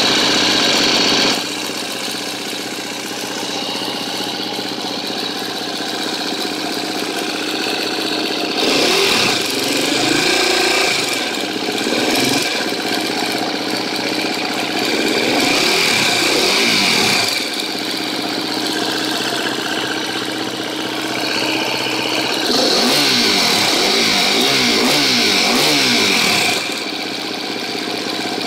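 KTM 250 EXC-F four-stroke single-cylinder dirt bike engine idling, with the throttle blipped several times in the middle and again near the end. It has a ticking at idle that the owner suspects comes from a bad cam tensioner.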